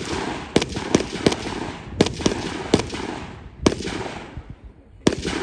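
Gunshots from a firearm fired at targets, about nine shots at uneven intervals, each with a long echoing tail.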